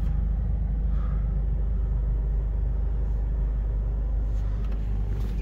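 A 2005 Jeep Wrangler's 4.0-litre inline-six engine idling, heard from inside the cabin as a steady low rumble.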